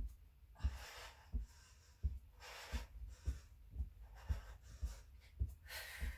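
A woman breathing hard during mountain climbers, with soft low thuds of her feet landing on an exercise mat about every two-thirds of a second.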